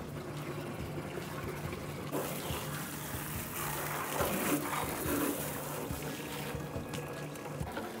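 Water from a garden hose spraying and splashing over a refrigerator as it is rinsed, with water also poured over it from a scoop. The splashing grows louder about two seconds in and eases off after about six seconds.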